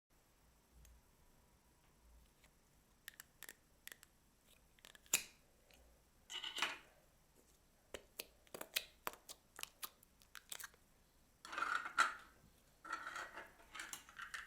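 Slime being squeezed and worked by hand: many sharp clicks and pops, with a few longer squishy crackling bursts in the second half.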